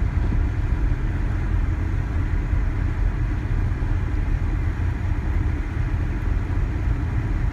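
Steady low rumble of a car driving on a snow-covered road in a ground blizzard: engine and tyre noise with a hiss of wind, unchanging throughout.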